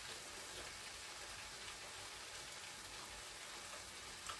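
Garlic scapes frying in a pan on a portable gas burner, sizzling softly and steadily with faint crackles while still cooking through, not yet done. A single light click near the end.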